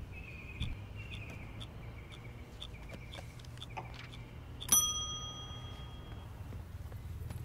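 Faint, regular clicks about twice a second, then a single bright bell ding about two-thirds of the way in that rings on for over a second, over a steady low hum.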